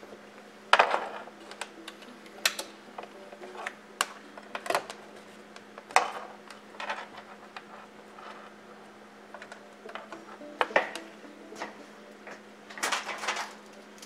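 Irregular clicks and clacks of test leads being handled: alligator clips set down on a plywood board and banana plugs pushed into a bench power supply's terminals, over a steady low hum.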